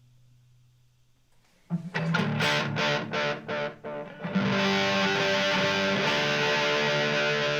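Electric guitar played through a TC Electronic Flashback X4 delay pedal. After a second and a half of near quiet with a low note fading out, a few short strummed chords start suddenly, and from about four seconds in, full chords ring on.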